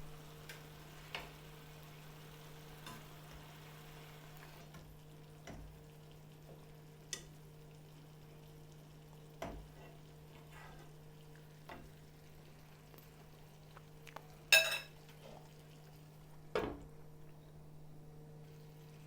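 Food frying in a pot while being stirred, with a spoon knocking against the pot now and then; a sharp metal clink about 14.5 s in is the loudest sound, with another knock about two seconds later. A steady low hum runs underneath.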